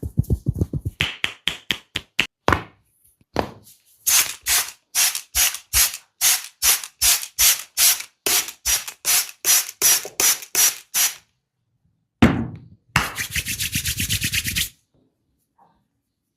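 Percussive massage strokes on a person's body: a steady run of sharp slaps about three a second, then a single low thump and a quicker, denser stretch of strikes mixed with rubbing near the end.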